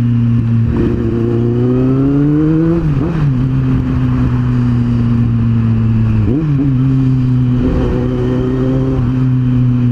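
Kawasaki Z750's inline-four engine running loudly while riding. Its note rises and drops back sharply about three seconds in, with another brief dip a little after six seconds.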